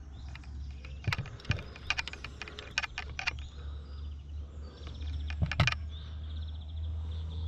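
Irregular sharp clicks and rattles of handling close to the microphone, a few in quick succession and then a pair, over a steady low rumble.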